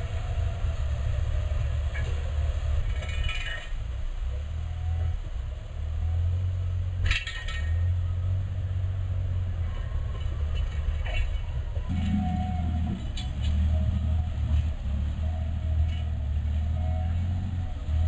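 A bulldozer's diesel engine running steadily under load, a low rumble that grows fuller about twelve seconds in, with a few sharp clinks and knocks, the loudest about seven seconds in.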